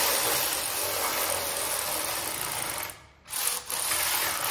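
Electric ratchet running, spinning bolts into the hitch's threaded crossbar to snug them only loosely. It runs for about three seconds, stops briefly, then runs again near the end.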